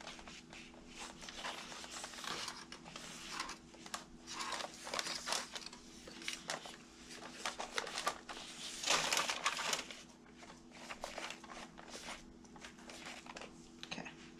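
Plastic-gloved hands smoothing wet acrylic paint over a canvas in a foil pan: irregular rubbing and rustling strokes, loudest about nine seconds in. A steady low hum runs underneath.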